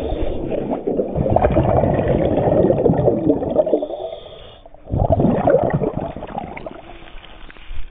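Underwater bubbling and water rushing past a diver's camera as the diver rises. A brief lull just before five seconds in, then a second burst of bubbling and splashing as the camera reaches the surface.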